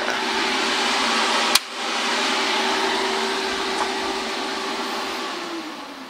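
Cooling fan of an AHP Alpha-TIG 200X welder running with a steady whirring hum. There is a sharp click about one and a half seconds in, with a brief dip before the fan comes back up. Near the end the fan winds down, its hum falling in pitch.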